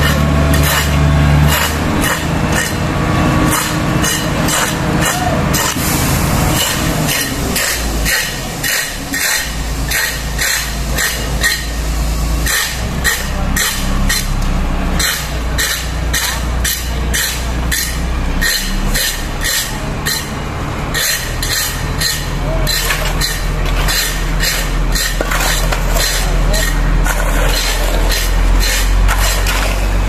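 A concrete mixer truck's diesel engine runs steadily, its engine speed shifting a few times. Over it comes a rapid, irregular series of scrapes and clinks from shovels and rakes working wet concrete on the road.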